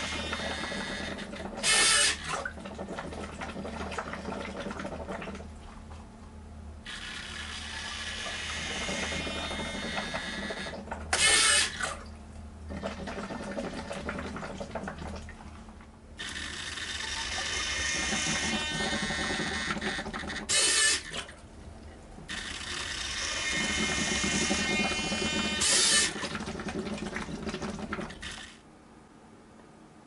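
Homemade water-bottle ventilator cycling: air bubbles and gurgles through the water in stretches of a few seconds, broken by four short loud bursts. It goes quiet near the end.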